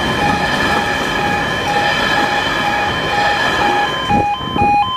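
Freight wagons running over the level crossing with a steady rumble and clatter that dies away about four seconds in as the train clears. Through it the crossing's warning alarm keeps beeping about twice a second, and near the end it switches to an alternating two-tone yodel.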